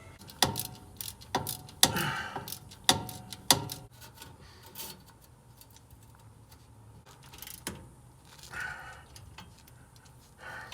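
Irregular metallic clicks and knocks of hand tools working on an exhaust pipe clamp, a quick cluster of sharp strikes in the first few seconds, then scattered clicks.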